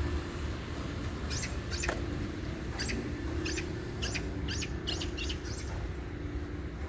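A small bird chirping, a quick run of about a dozen short, high calls that stops about two seconds before the end, over a steady low outdoor rumble.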